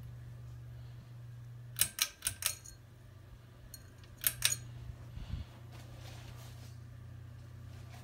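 Heritage Landsdale 52-inch ceiling fan's motor humming steadily while its pull-chain switch is worked: a quick run of four clicks about two seconds in and two more just after four seconds.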